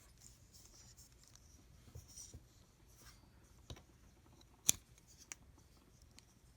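Faint handling of a small folding steel multi-tool: light rubbing and a few sharp little clicks as its parts are worked, the loudest click about two thirds of the way through.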